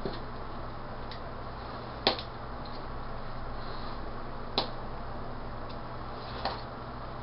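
Three sharp clicks, about two seconds apart, with a couple of fainter ticks before them, as printed business cards are cut apart by hand. A steady low hum runs underneath.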